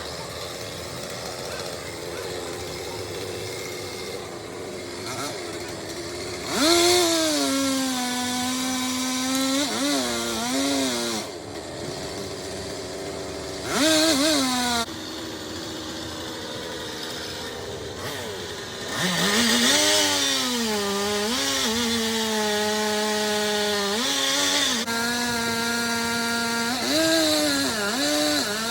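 Chainsaw running at a low level, then revved up several times. Each time its pitch drops and holds steady for a few seconds as it bogs into the wood, then rises again as the cut ends.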